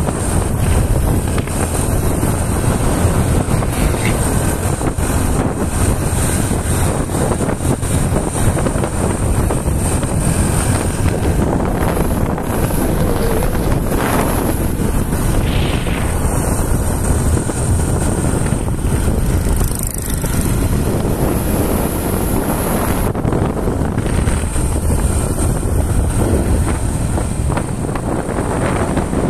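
Wind buffeting the microphone of a vehicle moving at road speed: a steady loud rush, with vehicle and road noise underneath.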